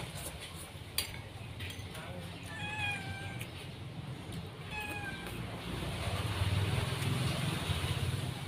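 Two short, slightly falling meow-like animal calls, about two seconds apart, with a sharp click about a second in.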